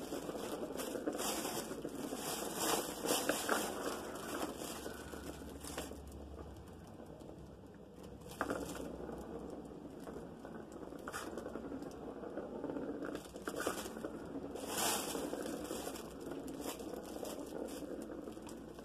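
A cat's fabric play tunnel rustling and crinkling as the cat shifts inside it, mixed with a plastic ball rolling and clicking around a circular track toy as the cat bats at it. The sound is an irregular crackle with scattered clicks, busiest in the first few seconds and again about halfway through.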